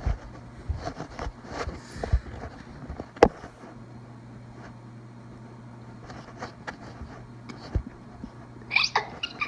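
Scattered knocks and handling clicks over a steady low hum, with one sharp click about three seconds in. A brief voice sound comes near the end.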